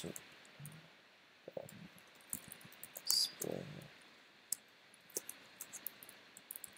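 Computer keyboard keys clicking in scattered, irregular keystrokes while code is typed, with one louder short noise about three seconds in.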